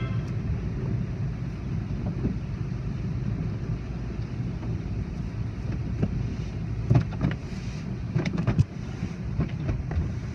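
Automatic car wash heard from inside the car: a steady low rumble of machinery and spray, with the cloth wash strips slapping and thudding against the windshield, loudest about seven seconds in and again around eight and a half seconds.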